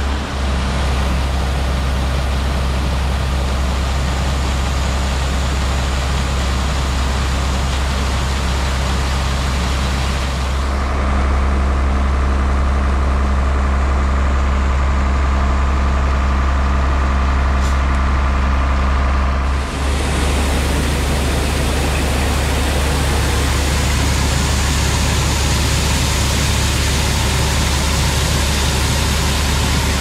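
Grain truck engine running steadily, a loud, even low drone. From about ten seconds in to about twenty seconds in the tone changes to a smoother hum with less hiss, then goes back.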